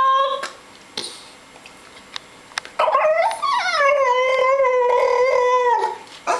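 French bulldog puppy 'talking': the end of one long, drawn-out vocal call, then after a pause of about two seconds a second call about three seconds long that swoops up and down at first and then holds a steady pitch. The dog is complaining, unimpressed with how many treats he gets.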